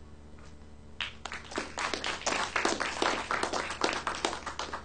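Audience applauding: a round of many hands clapping that begins about a second in and thins out near the end.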